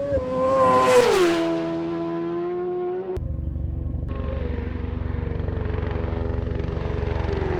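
A Suzuki GSX-R1000 superbike's inline-four engine passes at racing speed, its note dropping in pitch as it goes by about a second in. About three seconds in, a cut brings a steady low, rapidly pulsing drone.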